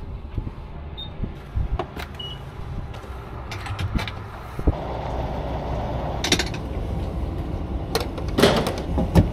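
Lexus GX460 driving on a rough road: a steady low rumble with sharp knocks and rattles now and then. A louder, rougher road noise sets in about halfway.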